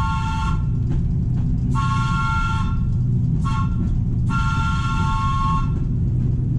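Train air horn sounding a three-note chord in long, long, short, long blasts, the standard grade-crossing signal, over a steady low rumble.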